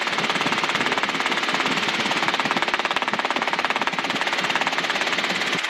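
Robinson R22 helicopter in powered flight, heard through the cockpit headset intercom: the steady, rapid even pulsing of the main rotor and engine.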